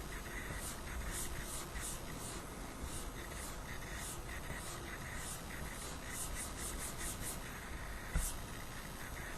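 Coil whine from a 2016 Asus ZenBook Pro UX501VW laptop: a steady hiss with irregular short high-pitched chirps and a faint whine that comes and goes, an electrical noise the owner takes for a sign that something is wrong. A short low bump about eight seconds in.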